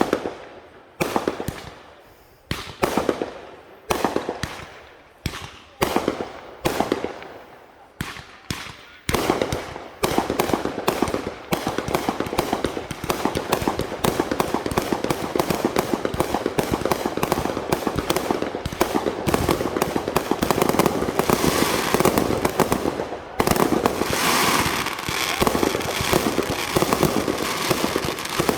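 Fireworks going off: separate loud bangs, each ringing away, about one a second for the first nine seconds, then a dense, continuous crackle of rapid-fire reports.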